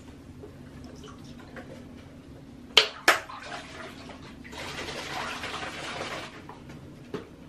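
Bath water stirred by a child playing in a bathtub: two sharp splashes close together about three seconds in, then about two seconds of water sloshing, and a small knock near the end.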